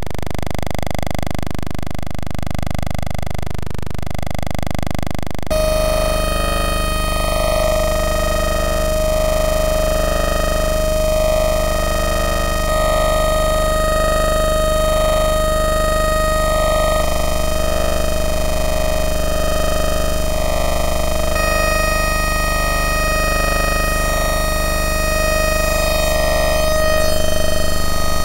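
Oscilloscope music: the Eurorack modular synth signals that draw the shapes on the oscilloscope, heard as a steady synthesizer drone of several held tones. The sound changes abruptly about five seconds in, and shifts again about two-thirds of the way through.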